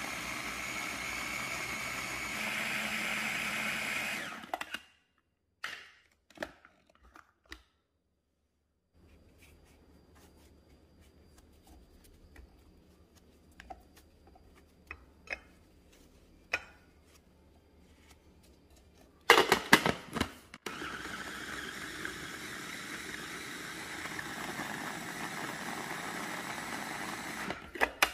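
KitchenAid electric food processor running steadily as it chops onion and bell pepper, stopping after about four seconds. Scattered clicks and knocks of the bowl and lid follow while bread is loaded in. It starts again with a loud jolt about two-thirds through and runs steadily for about eight seconds, grinding bread into crumbs, then stops near the end.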